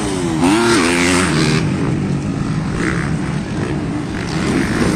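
MX1-class motocross motorcycles' engines revving around the track, several bikes at once; in the first second and a half the pitch rises and falls sharply as a rider works the throttle, then the engines run steadier and lower.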